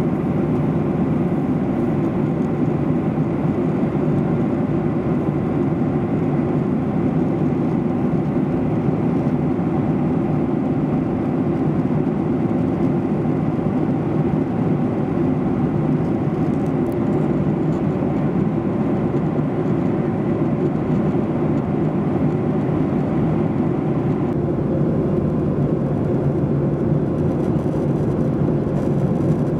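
Steady cabin noise inside a Boeing 737-800 in flight: the even roar of its CFM56 turbofan engines and the airflow over the fuselage. The higher hiss thins slightly about three-quarters of the way through.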